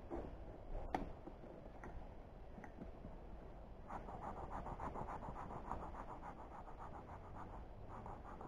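Air being puffed into a beekeeper's smoker to rekindle its smouldering fuel: a breathy, fluttering rush from about four seconds in. Before it come a few faint clicks of handling, one sharper.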